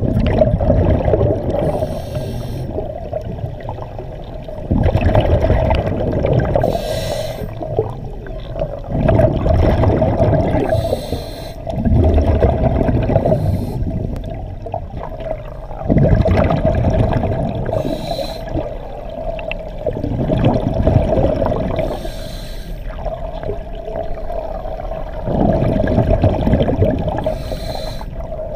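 Scuba diver breathing through a regulator, heard underwater: a rumble of exhaled bubbles about every four seconds, each breath with a short hiss, over a steady hum.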